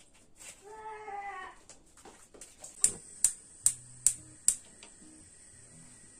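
A cat meows once, then about three seconds in a gas hob's spark igniter clicks five times in quick succession as a burner is lit.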